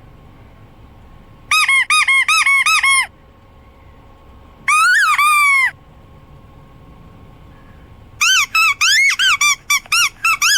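Squeaky dog toy squeezed repeatedly: a quick run of about eight short squeaks, then two longer squeaks a couple of seconds later, then a fast flurry of squeaks near the end, each squeak rising and falling in pitch.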